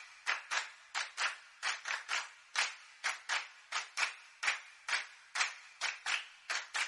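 Sharp, dry percussive snaps in a steady rhythm, about three a second, each with a short ringing tail, with no melody or bass under them.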